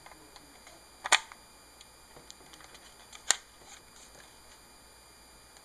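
Handling of a ZR960 camcorder with its AV cable plugged in: two sharp plastic clicks about two seconds apart, with a few faint ticks, over steady hiss.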